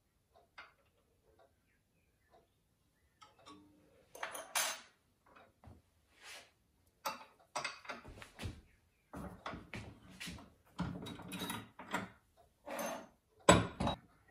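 Metal-on-metal handling at a bench vise as a thin metal strip coiled on a brass rod is worked and the rod is freed: irregular scrapes and clinks, with one sharp knock about a second before the end.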